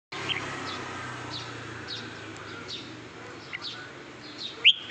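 Red-whiskered bulbul calling: a series of short, quick falling chirps, then a loud, sharp call near the end.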